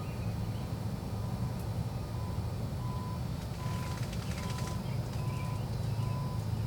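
A vehicle's reversing alarm beeps steadily, one short tone about every three-quarters of a second, over a steady low engine rumble. A brief patch of rustling clicks comes about four seconds in.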